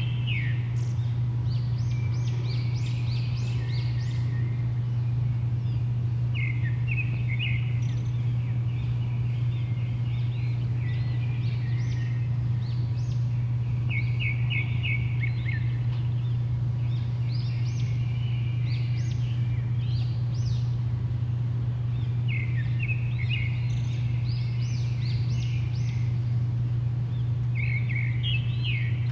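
Songbirds singing in short repeated bursts of quick chirping notes every few seconds, over a loud, steady low hum.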